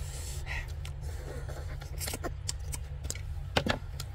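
Close-up eating sounds of people chewing goat head meat and picking at it with their fingers: scattered short wet clicks and smacks, the sharpest about three and a half seconds in, over a steady low hum.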